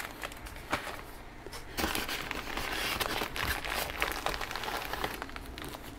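Plastic bag crinkling as a bag of isopod substrate is gripped and lifted out of a cardboard box, with a few light knocks in the first two seconds.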